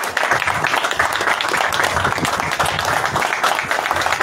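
Crowd applauding, with voices mixed in.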